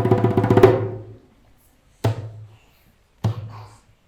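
Music with fast, rapidly repeated drum strokes over held tones stops about half a second in and dies away. Then come two separate low thumps about a second apart.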